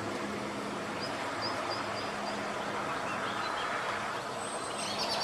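A steady hum of an idling vehicle engine over a general outdoor noise haze, with a run of short, high bird chirps about a second in and more chirping near the end.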